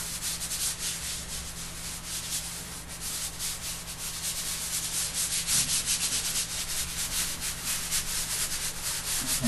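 Fingertips rubbing and blending soft chalk on a drawing in rapid repeated strokes: a dry, scratchy hiss that grows louder toward the end.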